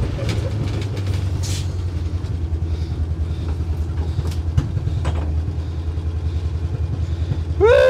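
1962 Ford C750 cabover's 332 Y-block V8 idling steadily, a low even pulsing.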